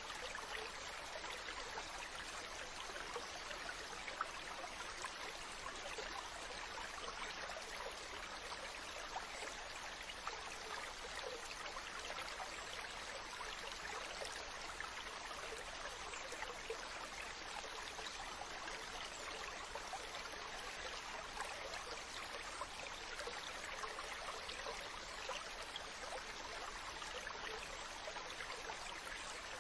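Steady rush of seawater with a fine fizzing crackle, even in level, with no separate wave swells or bird calls standing out.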